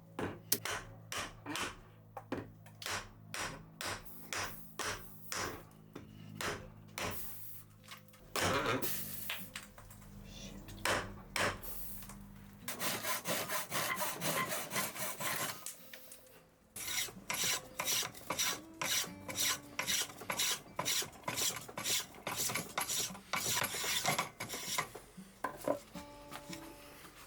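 Hand tool rasping on wood in quick repeated strokes, about two a second, with two longer stretches of continuous scraping near the middle.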